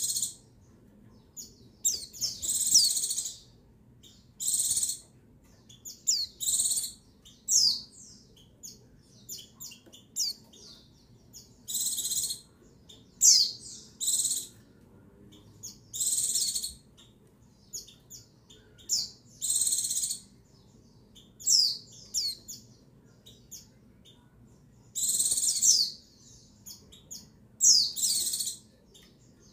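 Female white-eye (pleci) calling: short, high, buzzy calls mixed with thin sliding chirps, repeated every second or two. This is the female's call that keepers play to rouse male pleci to sing.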